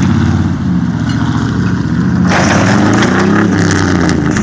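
Pickup truck engine pulling hard under load as it drags an overturned trailer on its side through snow. About two seconds in, a loud scraping and crunching joins it as the trailer's body twists and buckles.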